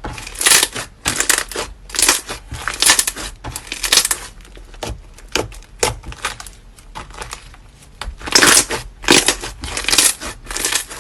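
Slime being squeezed and pressed by hand, giving a run of short squishing, crackling sounds about two a second, with a quieter stretch in the middle.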